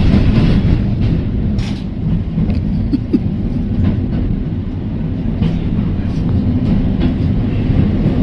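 Heritage electric tram running along the tramline: a steady low rumble of wheels on rails, with a few short clicks and rattles.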